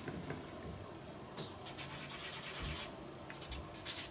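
An eraser and then a folded cotton pad rubbing over pastel-coloured drawing paper. The scrubbing comes in a spell from about one and a half seconds in to nearly three, and again in a shorter spell near the end.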